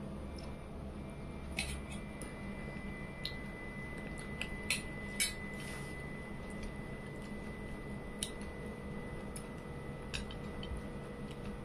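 Eating by hand: chewing and soft wet squishes of fingers tearing curried chicken, with a few sharp short clicks, over a steady low room hum and a faint steady high tone.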